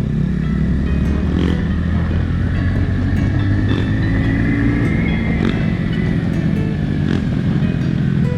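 Motorcycle engine running steadily on the move, with a thin high whine that rises a little near the middle and eases back down.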